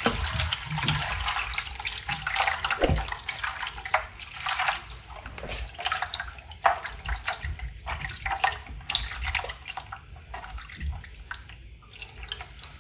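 Water poured from a plastic jug over a peeled gourd in a wooden bowl, splashing as hands rub and rinse it. The splashing fades near the end.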